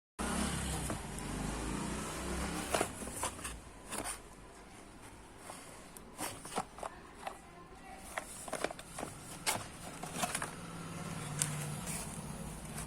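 Scattered clicks, taps and short scrapes of a motorcycle alarm kit and its packaging being handled. A low rumble runs under the first couple of seconds and again near the end.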